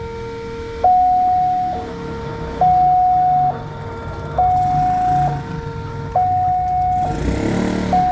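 Railway level-crossing warning alarm sounding as the boom barriers come down, the signal that a train is approaching. It is an electronic alarm alternating two notes about once a second, a lower two-tone chord and then a single middle note, over a low rumble, with a brief rush of noise near the end.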